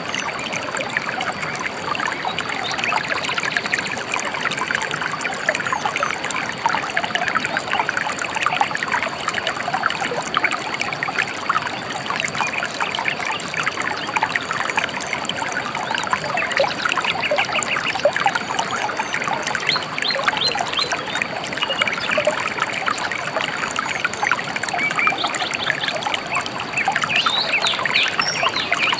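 A shallow river trickling and babbling steadily, with a few faint bird chirps now and then.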